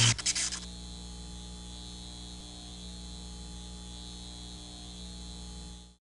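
A loud hit with a short rattle, then a steady electrical hum with several fixed pitches that runs on at a lower level and cuts off just before the end.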